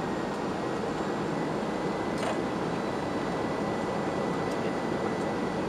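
Steady cabin noise inside a Boeing airliner descending on approach: an even rush of engine and airflow noise with a faint steady high whine.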